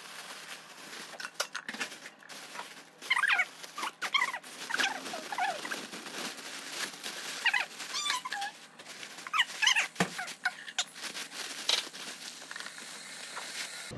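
A thin plastic bag crinkling and rustling as bean sprouts and herbs are shaken out of it onto a plate, with a run of short, high whining squeaks in the middle of the handling.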